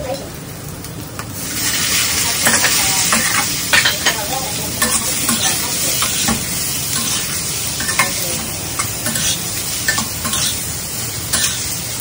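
Squid sizzling as it goes into a hot metal wok of frying aromatics and chili, the sizzle swelling about a second and a half in. A metal spatula stirs it, clicking and scraping against the wok again and again.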